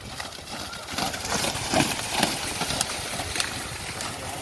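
A pair of racing buffaloes splashing through the flooded Kambla track, with a noisy rush of churned water that is loudest about one to two seconds in.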